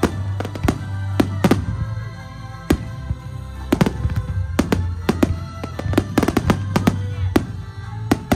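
Aerial fireworks bursting: a run of sharp bangs and crackles at irregular intervals, a few louder ones near the end. Music with held tones plays underneath.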